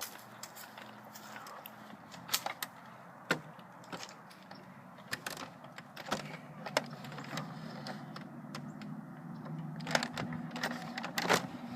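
Scattered light clicks and knocks, a few each second, over a faint low steady hum.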